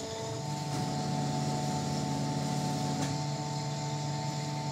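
Electric sausage-filling machine switched on and running with a steady multi-tone hum while it pushes haggis mixture into a natural beef-tripe casing.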